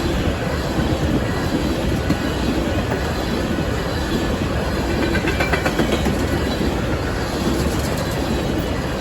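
Freight train of ethanol tank cars passing at speed: a steady rumble of steel wheels on the rails, with clickety-clack over the rail joints.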